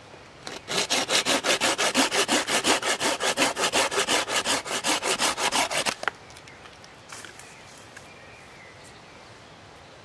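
Bahco Laplander folding saw cutting through a green branch stub with fast, even back-and-forth strokes, about five or six a second, stopping abruptly about six seconds in.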